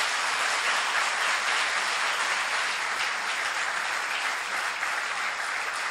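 A large seated audience applauding, an even clatter of many hands clapping that eases slightly near the end.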